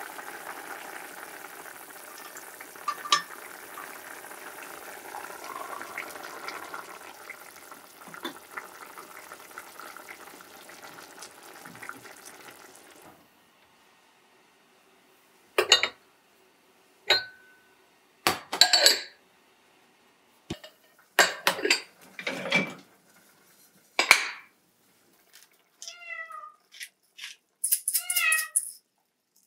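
A pot of vegetable soup simmering on an induction hob, a steady bubbling hiss that stops abruptly about halfway through. Then sharp knocks and clinks of dishes and cabinet doors, and near the end a cat meowing several times in short calls.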